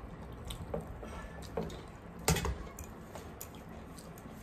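Close-up eating sounds: wet chewing and lip smacks of chole bhature eaten by hand, with scattered small clicks, the sharpest about two seconds in.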